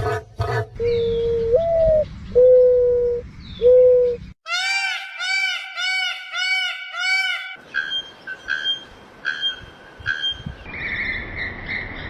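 A sequence of different bird calls cut one after another. First three long, low hoots, one of them rising at the end; then a quick run of arched notes, about three a second; then repeated sharper calls that give way to a higher trill near the end.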